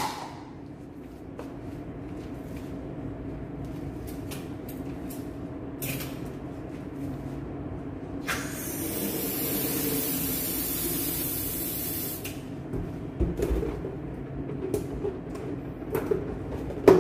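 Helium hissing steadily out of a tank valve into a balloon for about four seconds, starting about eight seconds in. A steady low hum and a few handling knocks sound underneath.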